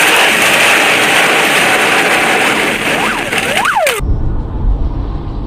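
A loud, steady hiss with a couple of short squealing glides in pitch near its end cuts off abruptly about four seconds in. It gives way to the low, steady rumble of a car's engine and tyres heard from inside the cabin of a moving car.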